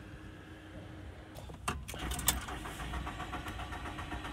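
Car ignition key clicking in the lock, then the engine being turned over to restart after it was switched off by mistake. It has not yet fired.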